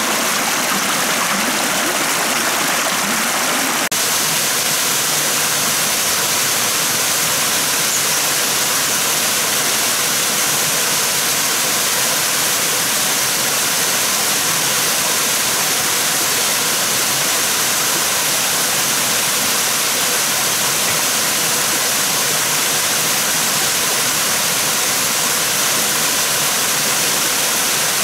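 Steady rushing and splashing of a small waterfall cascading over rocks, with a slight break about four seconds in where the sound shifts.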